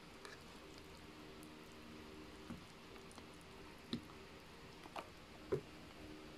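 A plastic spoon clicking and scraping against the plastic tray of a self-heating instant rice bowl, four short knocks spread through the second half, over a faint steady hum.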